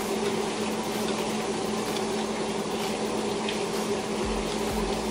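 Food cooking on a gas stove: a steady simmering hiss over a constant low hum, with a few light clicks of a utensil in the pan.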